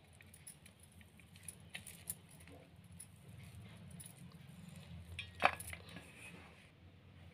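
Hands pressing masala stuffing into small brinjals over a steel plate: faint rustling and scattered small clinks, with one sharper clink about five and a half seconds in.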